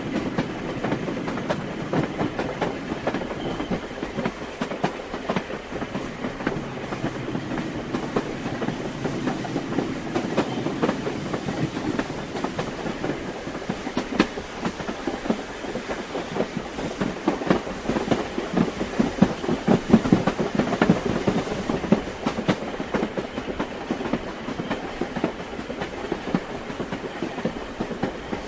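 Train wheels clicking over rail joints with the steady rumble of a moving railway carriage, the clicks irregular, a little stronger about two-thirds of the way through.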